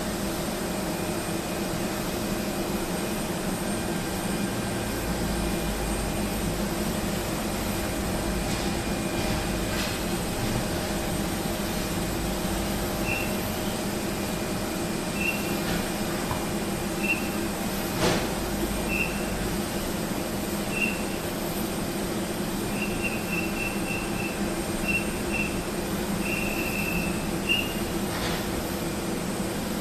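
Steady mechanical drone of a vehicle's engine heard from inside, with a run of short high-pitched chirps or beeps in the second half and a single sharp click about midway.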